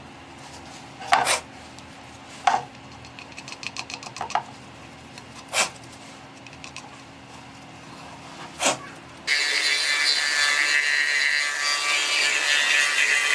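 Tools working a bamboo root: a few sharp knocks and light taps on the wood over a low hum. About nine seconds in, a loud, steady abrasive noise of the root being cut or sanded starts abruptly.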